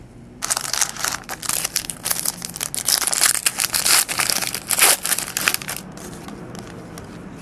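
Trading card pack wrapper being torn open and crinkled by hand: a dense crackle that starts about half a second in and dies down about six seconds in.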